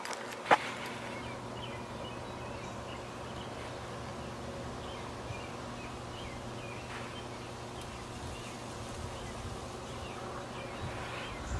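Outdoor ambience: a steady low hum with faint bird chirps scattered through it, and one sharp click about half a second in.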